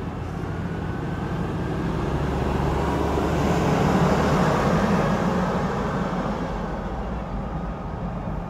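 Street traffic: a steady rumble of engines and tyres that swells to its loudest about four seconds in, as a double-decker tour bus draws alongside, then eases off.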